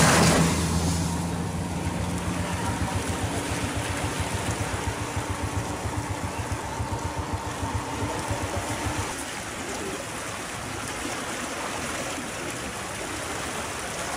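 Fast-flowing floodwater rushing steadily past a bridge, with a small engine running with a low, rapid throb that stops about nine seconds in.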